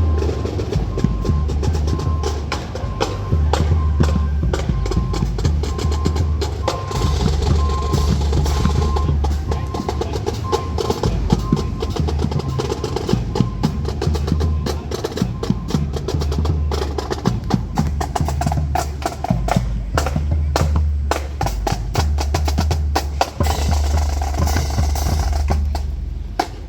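Marching band playing with its drumline to the fore: fast snare-drum strokes over a repeating bass-drum beat. The drumming drops away just before the end.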